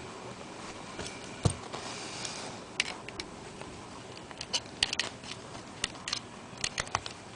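Irregular sharp metallic clicks and taps from a Master Lock No. 5 padlock being taken apart with small tools, with a single louder knock about one and a half seconds in and a quick run of clicks in the second half.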